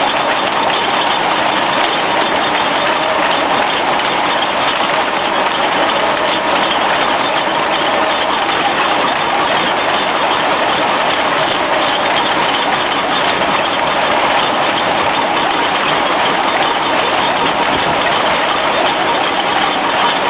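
Heavy percussion drill boring into a brick wall: a loud, steady, unbroken rattle of rapid hammering and grinding of brick.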